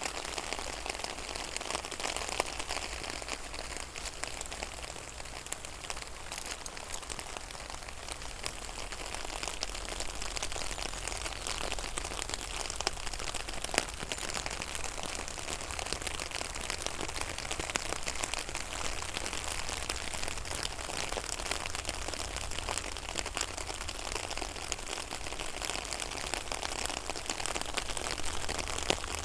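Steady rain falling on a pond's water surface, an even patter dotted with the ticks of single drops.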